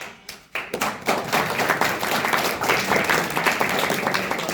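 Audience applauding: many hands clapping, starting suddenly and building to a full, steady applause about half a second in.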